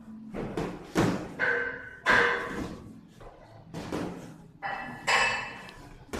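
Boxing gloves landing punches during sparring: about half a dozen dull, padded thuds at irregular intervals, some in quick pairs.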